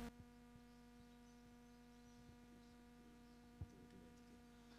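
Near silence: a faint steady electrical hum, with one small click about three and a half seconds in.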